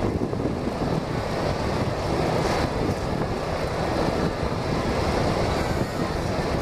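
Steady rushing noise with no clear pitch, like wind across a microphone or a large fan.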